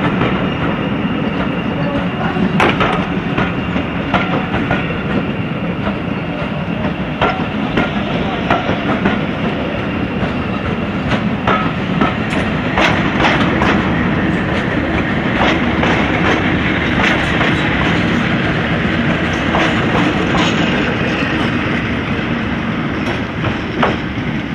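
Passing train: coaches rolling by with wheels clicking over rail joints, then a Class 50 diesel locomotive with its English Electric 16-cylinder engine running as it goes past, its drone steady under the clicks.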